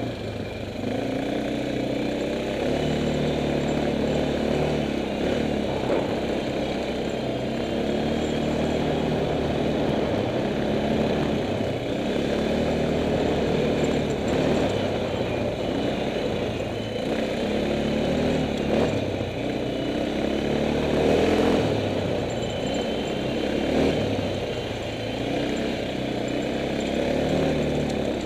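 Kymco MXU 500 quad's single-cylinder four-stroke engine running under way over a rough dirt track, its pitch rising and falling again and again as the throttle is worked.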